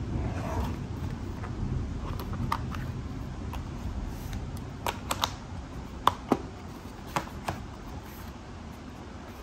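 Pens being placed into a clear plastic MUJI pen case and its lid closed: a short run of sharp plastic clicks and taps midway through, over a steady low rumble.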